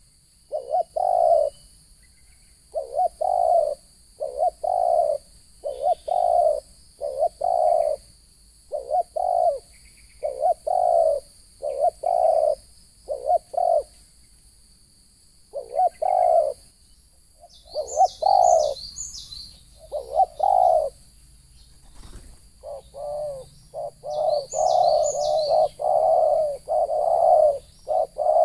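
Spotted doves (terkukur) cooing over and over in short groups of low notes, the cooing growing faster and denser near the end. A small bird chirps briefly twice, over a steady faint high whine.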